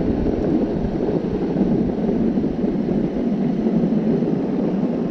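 Meepo Mini 2 electric skateboard's wheels rolling fast on coarse asphalt, a steady rolling noise with wind on the microphone.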